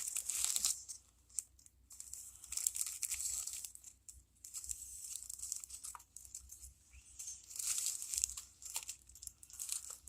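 Bag and paper crinkling in irregular bursts as a paper squishy is handled and pushed into its packaging bag.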